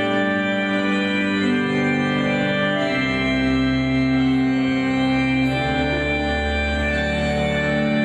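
Organ playing slow, held chords that move to a new chord every second or two.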